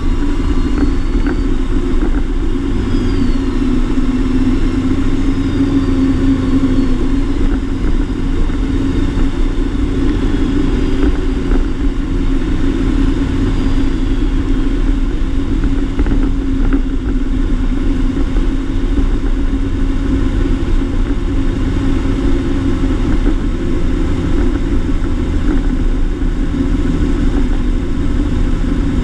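Claas Axion 850 tractor's six-cylinder diesel engine running at a steady pace under load while towing a slurry tanker. It is heard from outside the cab, with the rumble of the moving rig underneath.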